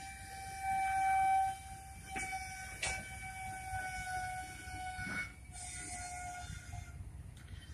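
Steel train wheels squealing against the rails as the train rolls slowly: a steady high-pitched squeal, loudest about a second in, that fades out near the end. A few knocks and a low rolling rumble sound underneath it.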